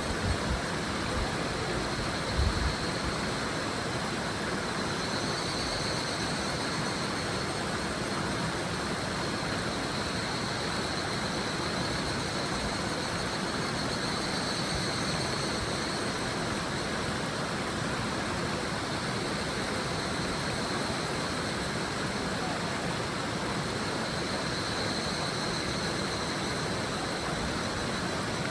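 A river babbles steadily while higurashi (evening cicadas) call in high trilling choruses that swell and fade about three times. A couple of low bumps come in the first few seconds.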